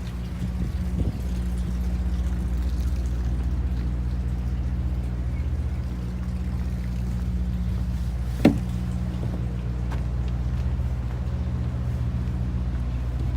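Boat engine running steadily with a low, even hum, with one sharp knock about eight and a half seconds in.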